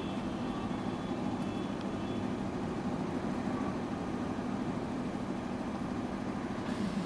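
A JR 213 series electric train standing at the platform, its onboard equipment giving a steady low hum.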